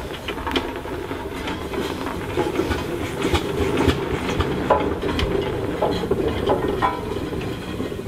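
Aveling & Porter steam road roller running as it moves slowly, a continuous mechanical rumble with irregular clanks and knocks from its works and iron rolls.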